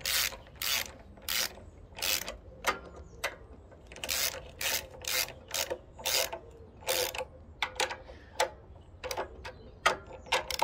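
Socket ratchet clicking in short, repeated strokes, about two a second, as bolts on a small four-stroke engine's carburettor are tightened in turn.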